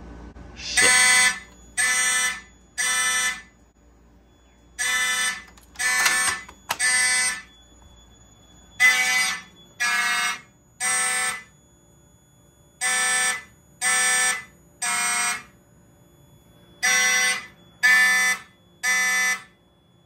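Simplex and Wheelock mechanical fire alarm horns sounding together in the code-3 temporal pattern: three blasts, a pause, then three more, five times over. Partway through, the horns change pitch.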